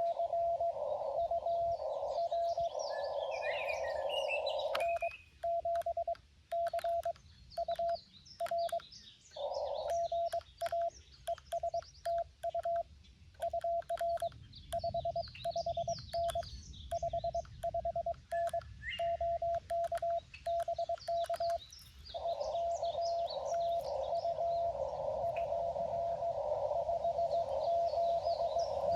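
Xiegu G90 transceiver sending Morse code: a single mid-pitched beep keyed in dits and dahs for about seventeen seconds, starting about five seconds in. Before and after it there is band hiss with a faint steady tone, heard through the radio's narrow CW filter. Birds chirp faintly in the background.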